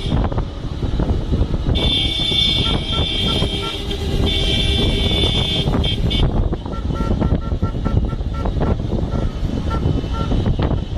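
Car horns honking: a held multi-tone blast from about two seconds in to about six, then a run of short quick beeps, over the steady rumble of a car driving on a gravel road.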